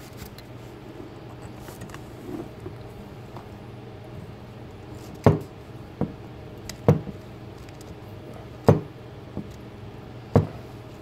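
Sharp metal knocks and clicks, four loud and two lighter, spaced about a second apart in the second half, as small steel studs and parts are handled on a mini lathe's cast-iron carriage. A steady low hum sits underneath.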